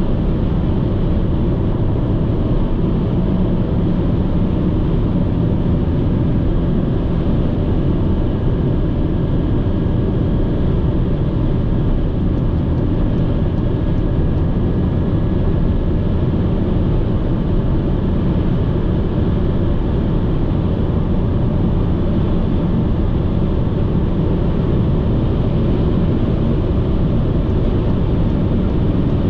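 Steady road noise of a car driving at motorway speed: an even rumble of tyres and wind, strongest in the low end, with no separate events.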